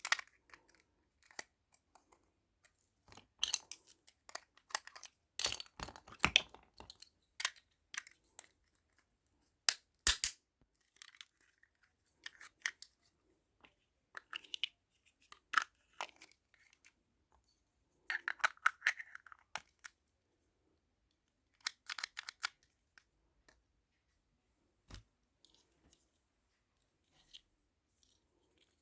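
Hands working with small miniature-kit pieces: scattered clicks and taps with bursts of paper or plastic rustling, in irregular spurts separated by short quiet gaps.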